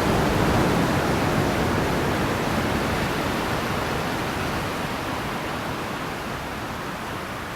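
Sea waves: a continuous wash of surf that slowly dies away as a wave recedes.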